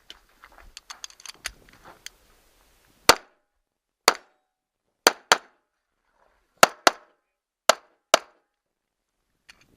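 A 9mm Taurus 1911 pistol firing eight shots, at first singly about a second apart, then in quick pairs. Before them come about two seconds of small clicks and knocks.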